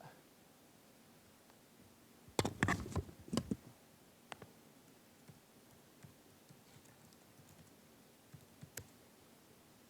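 Clicking and tapping on a computer keyboard: a quick cluster of loud clicks about two and a half seconds in, then a few faint scattered ticks.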